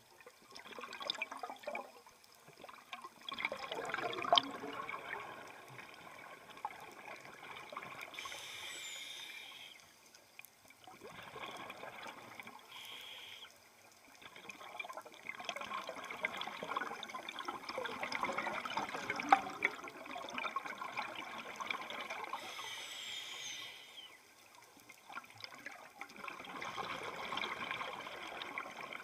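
Scuba diver breathing through a regulator, heard underwater: a short hissing inhale, then a longer bubbling exhale, repeating in a slow cycle.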